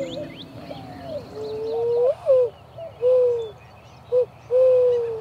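Hand-call whistle, a man blowing into cupped hands to imitate a dove's coo: about five low hoots, the first ones sliding up then dropping, the last one long and steady. Faint high bird chirps sound behind.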